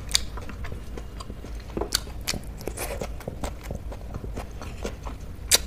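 Close-miked eating by hand: small clicks and smacks of fingers, lips and chewing, with a sharper click near the end.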